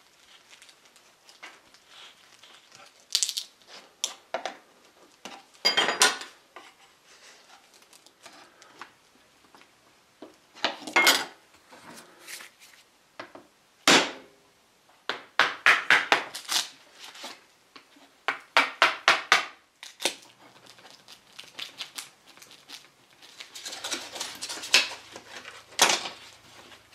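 Steel pry bar and putty knife clinking and scraping against wood as a glued-down wooden keeper strip is pried off a tambour door frame: an irregular series of sharp metallic clicks, clatters and short scrapes.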